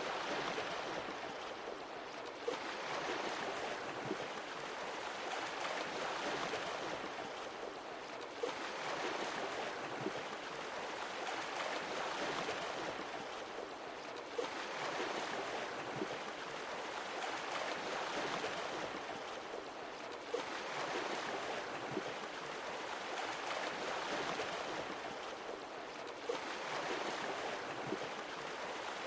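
Sea waves washing in and drawing back, each surge swelling and easing about every six seconds, with a short click at the start of each surge.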